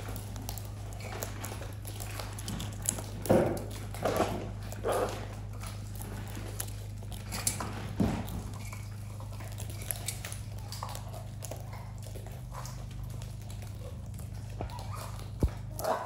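Macaws and a cockatoo eating seed mix from a metal tray: scattered small clicks and crunches of beaks on seed and metal, with a few louder short animal sounds about three to five seconds in and again at eight seconds, over a steady low hum.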